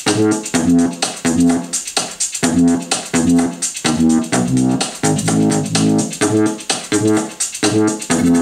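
Instrumental music with a steady beat, about two a second, over a low bass line, played through a small Bugani M99 portable Bluetooth speaker as a sound test.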